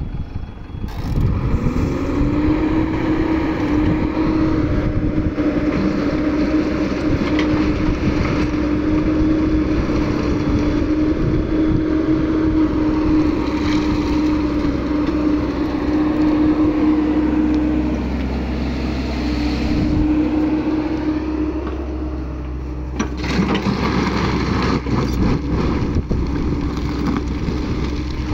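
Crawler excavator's diesel engine picking up speed about a second in and then running steadily under working load, with a steady whine over it. Near the end a rougher grinding noise joins as the bucket digs into the crushed-stone pile.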